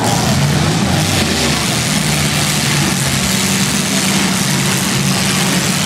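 Demolition derby cars' engines running loudly in a steady drone, their revs rising and falling a little.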